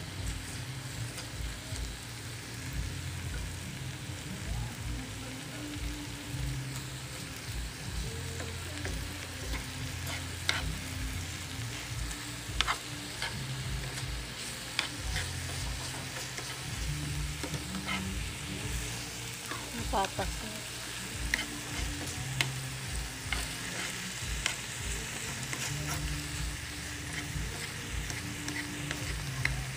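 Pork slices with garlic, onion and a bay leaf sizzling in oil in a nonstick frying pan, with a steady hiss. A spoon stirring the pan makes frequent sharp clicks and scrapes against it.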